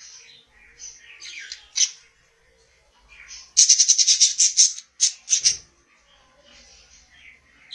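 Budgerigars chirping and warbling, with a rapid run of loud, sharp chirps lasting about two seconds in the middle.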